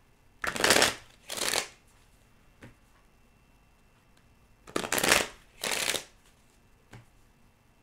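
Tarot cards being shuffled by hand: four short rushes of cards in two pairs, the second pair about four seconds after the first.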